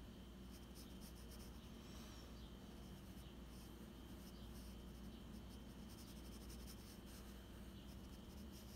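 Graphite pencil scratching on sketchbook paper, faint, in many short shading strokes.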